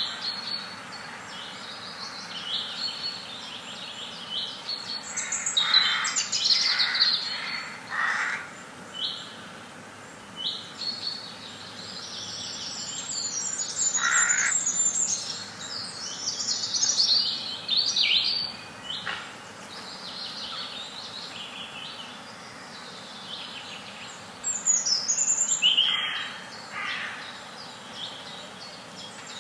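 Several wild birds chirping and calling at once: many short, high chirps and trills overlapping, with a few louder calls standing out.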